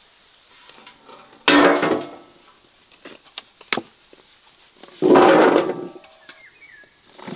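Two loud clatters of cooking work, about three and a half seconds apart, each dying away within a second, with light clicks and knocks between them.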